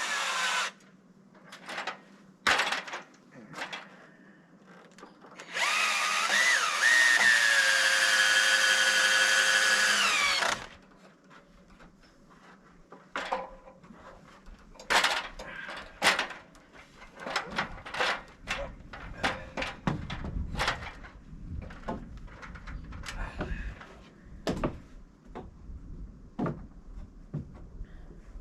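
Power drill driving 4-inch screws into wood: two short spins, then a long run of about five seconds whose pitch drops as the screw bites and then holds. A scatter of short knocks and clicks follows.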